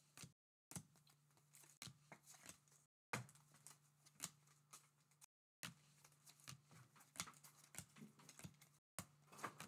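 2024 Topps Update baseball cards being flipped one by one through the hands: faint, irregular soft clicks and swishes of card stock sliding off the stack, over a low steady hum that drops out to dead silence a few times.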